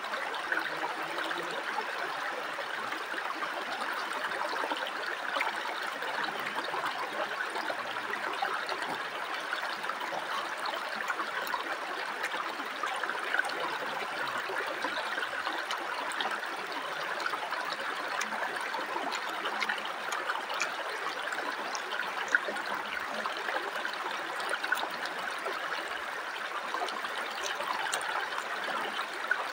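Shallow rocky river running and trickling steadily, with a few faint clicks.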